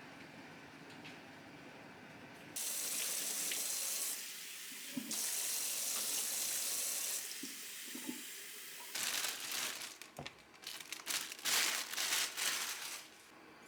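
Water running from a tap into a sink, turned on twice for a couple of seconds each time, then several short, uneven splashes of water.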